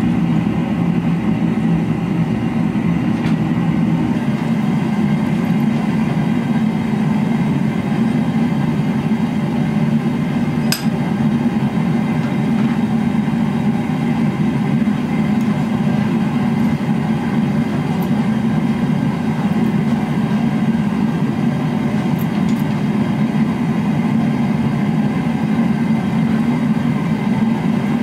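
A forge running with a steady, rough, low rumble, and a single light metal clink about eleven seconds in.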